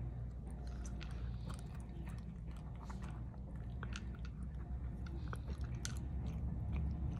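Dog eating soft chunks of cooked dog food from a bowl: a run of irregular wet chewing and biting sounds with small clicks, over a steady low hum.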